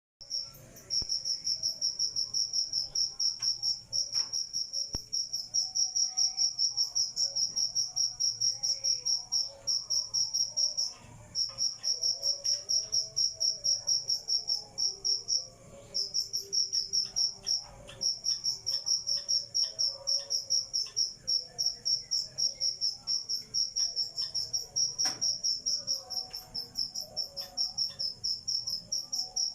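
A cricket chirping: a steady, rapid, high-pitched pulsing trill that breaks off briefly a few times.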